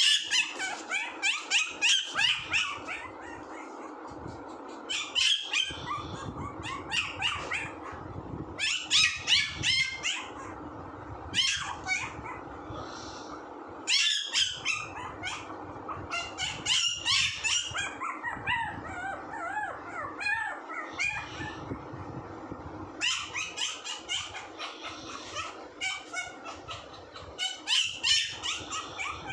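Pomeranian puppy yapping and whining: repeated bursts of rapid, high-pitched yips, some calls wavering in pitch like crying, with short pauses between bursts.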